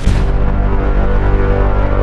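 Cinematic trailer hit sound effect, a "Michael Bay hit": a heavy impact lands at the very start, then a deep booming low end and a sustained low pitched chord ring on.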